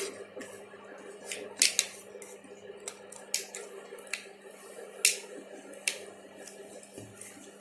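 Laptop battery pack's plastic case being pried open along its seam: a string of sharp, irregular plastic clicks and snaps.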